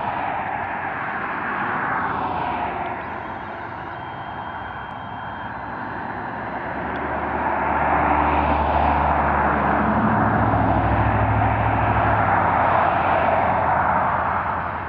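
Powered parachute's engine and propeller running as the craft comes in to land, getting louder about halfway through as it draws nearer.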